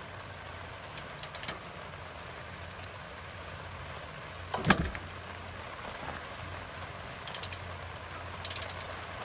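Wrench working the 12 mm oil drain bolt on a Honda GX390 engine: short bursts of quick ratchet clicks, and one loud sharp knock about halfway through, over a steady low hum.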